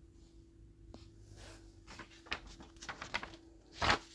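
Quiet room tone with a faint steady hum and a few faint ticks, then one short, louder noise near the end.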